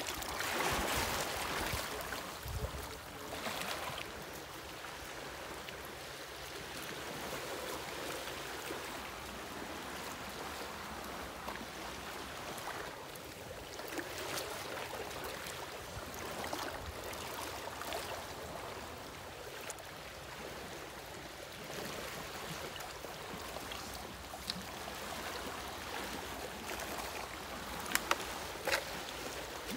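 Steady hiss of running water, with two sharp clicks near the end.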